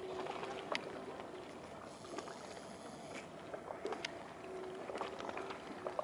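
Faint waterside ambience: a steady hiss with scattered small clicks and taps, and a faint hum that fades in and out.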